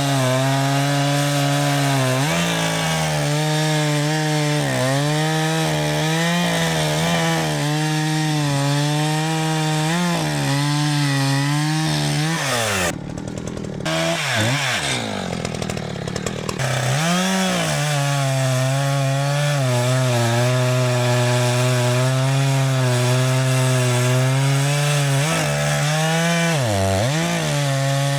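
ECHO CS-590 two-stroke chainsaw running at high revs while cutting wood, its pitch dipping again and again as the chain loads in the cut. About halfway through the engine drops off in pitch and level for a few seconds, then revs back up and cuts on.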